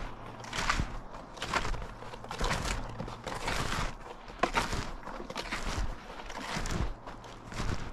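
Snowshoes crunching and compressing fresh powder snow in a steady walking rhythm, about one step a second.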